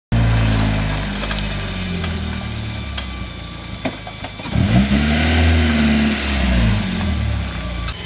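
Toyota Corolla AE86 engine idling, then revved once about halfway through, the pitch rising and falling back over two seconds or so before settling to idle.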